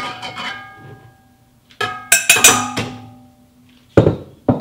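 Glass measuring jug knocking against the rim of a stainless-steel stand-mixer bowl while flour is tipped in. Each knock leaves the bowl ringing at several pitches that fade out, and the knocks come in two bunches. Two dull knocks near the end.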